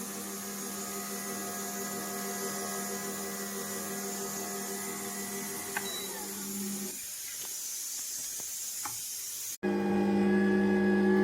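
Cold-press slow juicer's electric motor running with a steady hum. About seven seconds in it winds down and stops, with a couple of clicks. After a sudden cut, a louder motor hum starts near the end.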